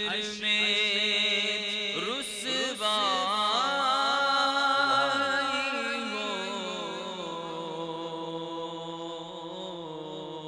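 A man reciting a naat into a microphone, singing long, ornamented, drawn-out melodic phrases; the last phrase is held and slowly fades.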